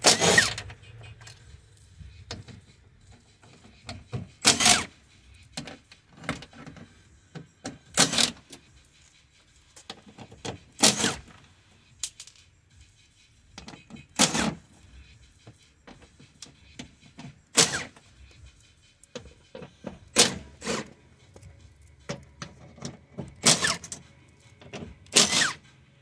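A Milwaukee cordless power tool runs in short bursts, about ten of them every three seconds or so, as it buzzes out the 10 mm bolts holding a VW Mk4 GTI door module panel. Faint clicks of handling come between the bursts.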